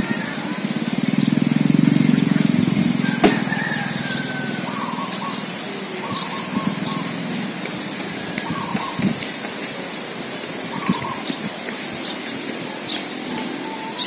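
The hummer of a Bugis pitu-pitu singing kite droning: a low hum swells over the first couple of seconds and then fades to a faint drone. Short bird chirps repeat every second or two, and there is a sharp click near the 3-second mark.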